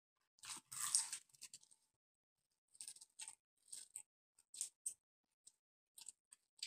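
Crispy breaded fried chicken drumstick being bitten and chewed: a crunchy bite about a second in, then a string of short crackling chews and mouth smacks.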